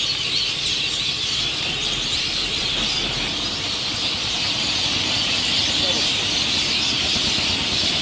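Dense, steady chorus of overlapping chirps and chatter from a huge flock of small songbirds gathering at dusk.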